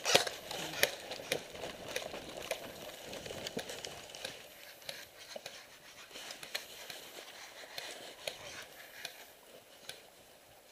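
Airsoft guns firing scattered single shots, heard as sharp clicks and pops at irregular intervals, the loudest just at the start, over the rustle of the wearer moving for the first few seconds.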